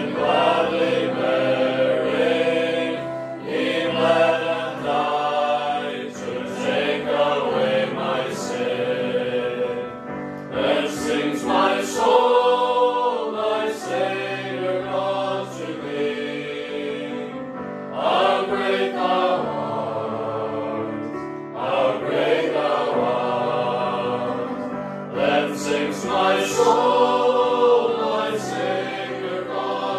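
A mixed choir of men and women singing a gospel hymn, phrase by phrase with brief breaks between lines.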